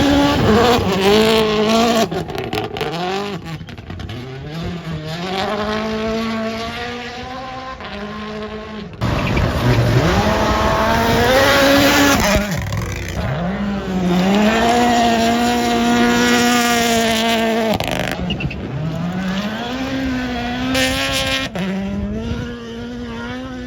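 Rally car engines under hard acceleration, revving up and dropping back through repeated gear changes. The sound changes abruptly twice, as if cutting between different runs.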